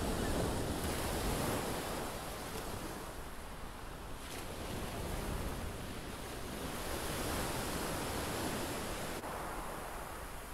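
Small waves breaking and washing on a shingle beach, the surf swelling and easing twice.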